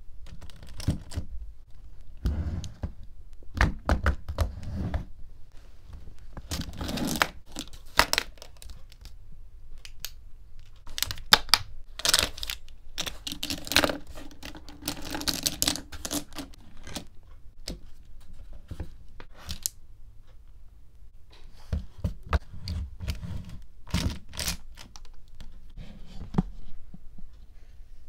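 Pencil case made of small magnet balls being handled: the balls click and snap together as the lid is lifted off and put back, with pens knocking against the case and the table. The clicks, knocks and short scrapes come irregularly in clusters.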